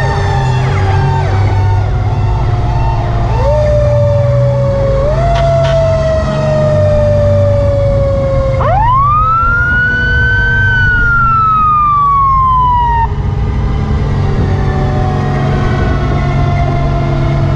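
Fire truck siren: a falling wail is pushed up twice early on. About halfway in it winds up sharply, climbs a little and slowly falls away until it stops. Under it the truck's engine runs with a low steady rumble.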